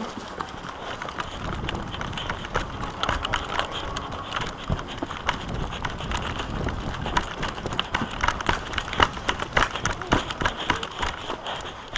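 A player running, with irregular footsteps and the knocking and rattling of carried gear over a steady hiss of movement.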